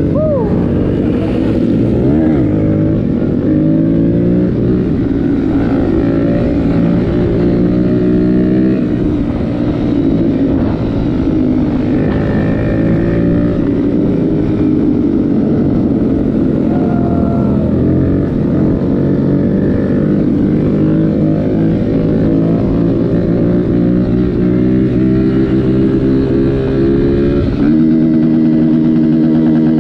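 Motorcycle engine running under way, its pitch rising and falling in steps with throttle and gear changes, then holding one steady pitch for the last couple of seconds.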